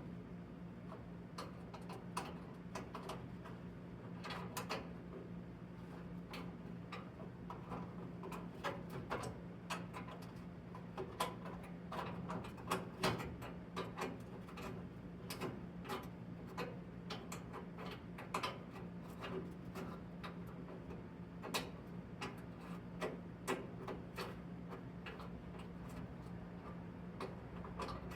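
Irregular light clicks and taps of small parts being handled during reassembly, many a second at times, over a steady low hum.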